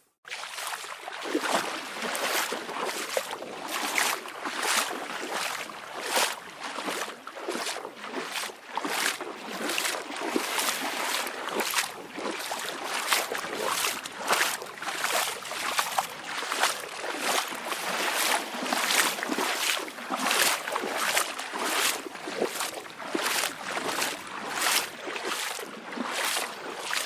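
Small waves lapping and splashing at the shoreline in quick, irregular slaps, about two a second.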